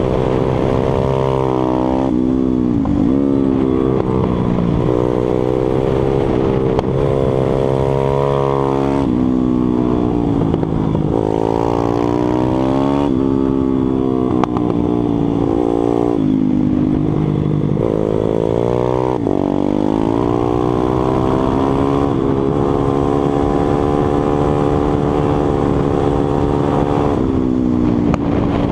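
Stomp 140 pitbike's single-cylinder four-stroke engine, heard from on board at race pace: the revs climb hard, then drop sharply at each gear change or corner entry, over and over.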